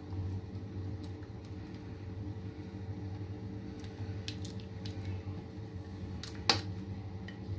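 Thick custard being scraped out of a china bowl with a silicone spatula and sliding onto cake in a glass bowl: soft squishing with a few light clicks, and one sharp tap of spatula or bowl against the dish about six and a half seconds in. A steady low hum lies underneath.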